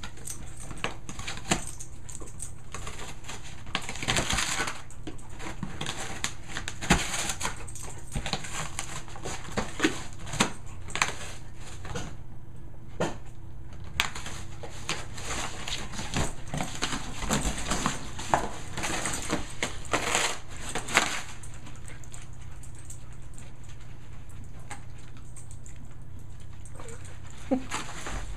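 A dog tearing apart and chewing a cardboard box: irregular crunches, rips and scrapes of cardboard, busiest in the first twenty seconds and sparser near the end.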